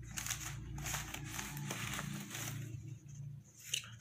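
Plastic fish-shipping bags, tied and filled with water, crinkling and rustling as they are handled. The rustle dies away after about two and a half seconds, and a low steady hum runs underneath.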